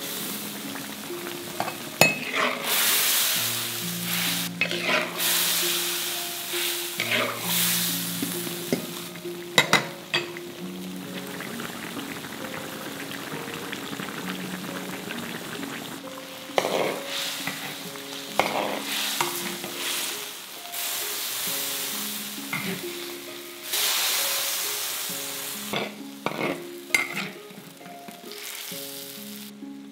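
Chili broth with meatballs and vegetables sizzling and bubbling in a large iron wok as it is stirred with a metal ladle, which clicks and scrapes against the wok now and then. Soft instrumental music with slow, held notes plays underneath.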